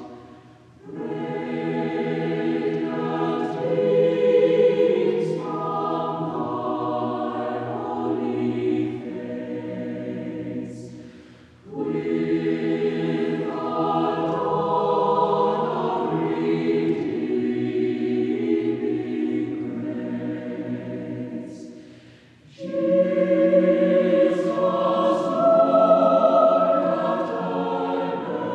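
Choir singing as background music, in three long sustained phrases, each ended by a short pause.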